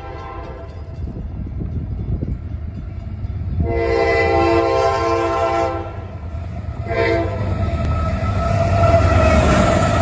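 Freight locomotive's multi-note air horn sounding as the train approaches: a blast tailing off at the start, a long blast about four seconds in and a short one about seven seconds in. Then the diesel locomotive's engine and wheels rumble louder as it arrives alongside.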